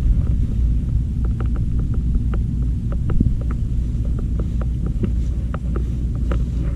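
Steady low rumble of wind buffeting the microphone, with a scatter of small clicks and taps from about a second in.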